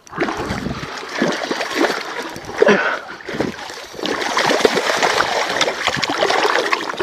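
A hooked common carp thrashing and splashing in shallow water at the bank as it is pulled in and grabbed by hand. The splashing is irregular and continuous, and it grows heavier and steadier from about four seconds in.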